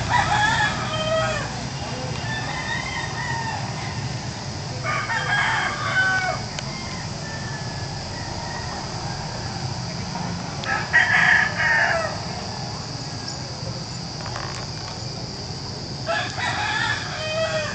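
Rooster crowing four times, about every five seconds, each crow lasting about a second.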